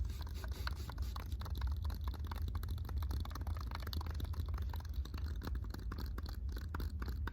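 A bouncy ball knocking and rattling about inside a closed tube as it is shaken: a quick, irregular run of small knocks, really quiet.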